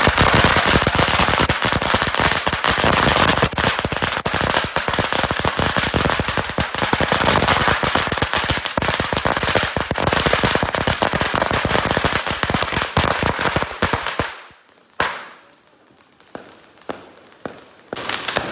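Firecrackers going off in a dense, rapid, continuous crackle of bangs that dies away about fourteen seconds in. Then a single loud bang, a few scattered pops, and the rapid bangs start again near the end.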